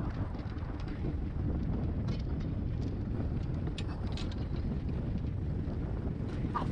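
Strong wind buffeting the microphone, heard as a steady low rumble with a few faint clicks.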